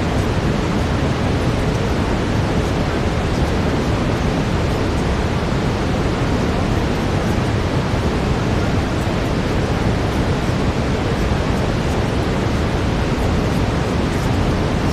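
Steady brown noise, a constant even rushing hiss weighted toward the low end, with no change.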